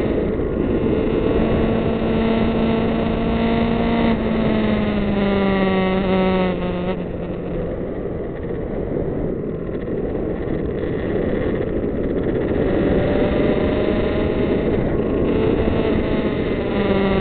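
Kawasaki Z900's inline-four engine running under steady wind and road noise, heard from the moving motorcycle. Its note falls about five seconds in as the throttle closes, sinks under the wind for several seconds, then rises again on the throttle near the end.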